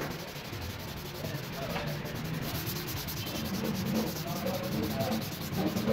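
A hand rubbing along a turned wooden spindle, a dry scratchy friction of skin and abrasive against the wood.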